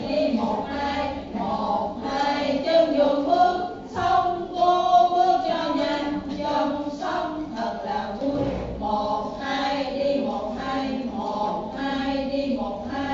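A group of voices singing a song together in chorus, holding notes that change about every second.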